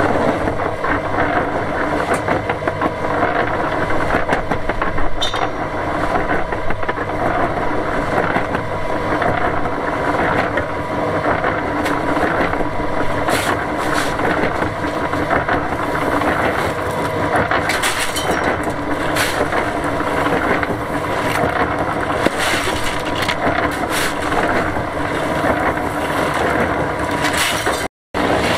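Small drum concrete mixer running steadily, its motor and turning drum churning a cement, sand and gravel mix. Sharp scrapes and knocks come now and then as more aggregate is shovelled in.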